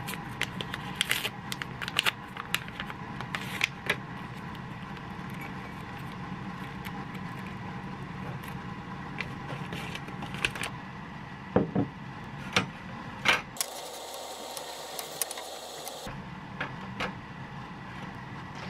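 Scattered clicks, taps and rustles of objects handled on a desk: a paper coffee drip-bag packet and a ceramic mug being set up, over a steady background hum. A short stretch of hiss about two-thirds of the way in.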